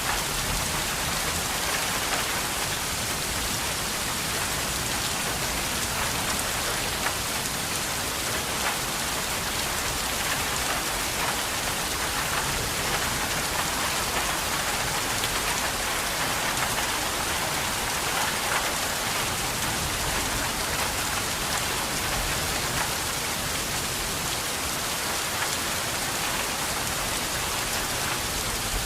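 Steady rain falling, an even hiss with many fine drop ticks on a surface, unchanging throughout.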